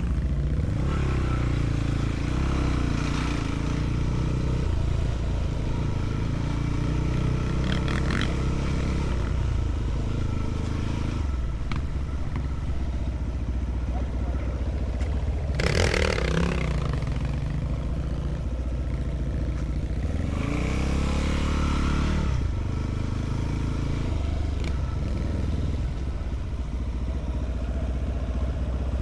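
Enduro motorcycle engine running under changing throttle, its pitch rising and falling as it revs, with clatter and scraping from the bike. A short, loud rushing burst comes about halfway through.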